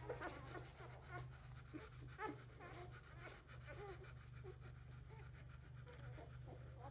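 Three-day-old Newfypoo puppies giving short, high squeaks and whimpers scattered throughout, with the mother dog panting.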